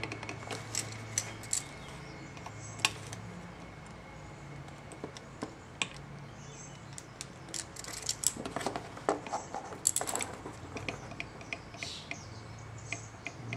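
Scattered small metallic clicks and taps of a screwdriver and fingers on the governor of a Victor phonograph spring motor as its tension screw is set, over a faint steady low hum. The clicks come thickest about two-thirds of the way through.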